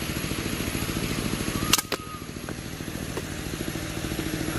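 A small engine running steadily, with one sharp crack a little under two seconds in.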